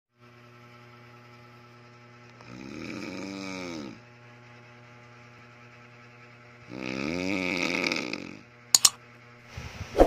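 A man snoring with his mouth open: two long snores, each over a second, about four seconds apart, over a faint steady hum. Near the end come two sharp clicks, louder than the snores.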